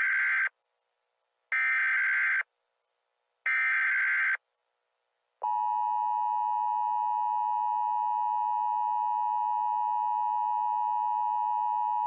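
Emergency Alert System SAME header tones: three harsh digital data bursts, each about a second long with about a second between them, encoding a Nuclear Power Plant Warning. About five seconds in, the EAS two-tone attention signal begins, a steady dual tone of 853 and 960 Hz, and it holds steadily.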